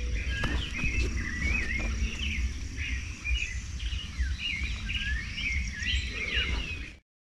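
Birds chirping and calling repeatedly in short, warbling phrases over a steady low rumble and hiss, with a thin steady high tone above. All sound cuts off suddenly near the end.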